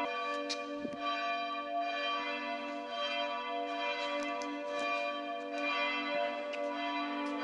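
Several church bells ringing together in a steady peal, their long tones overlapping into a continuous wash.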